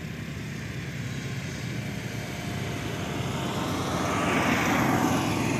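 Radio-controlled helicopter's rotor blades and motor whirring in flight, growing louder about four seconds in.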